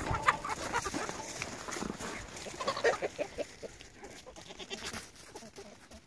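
Chickens clucking, a run of short calls that is busiest and loudest about three seconds in.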